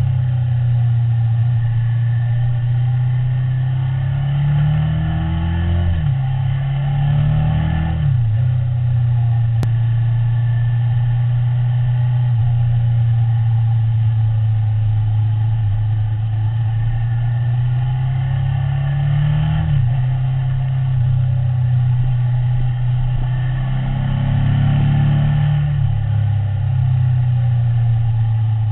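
Ducati motorcycle engine under way, heard from the rider's seat: its pitch climbs steadily and then drops sharply, about four times, as the bike pulls through the revs.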